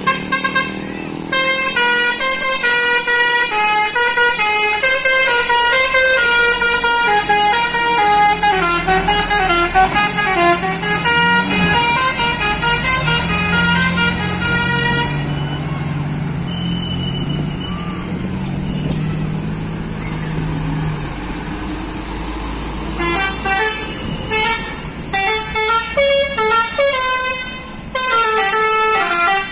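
Tour bus basuri horns, multi-trumpet telolet horns, playing a fast melody of stepped notes for about fifteen seconds. A bus engine runs under a lull in the middle, then another bus's basuri horn starts a choppy tune near the end.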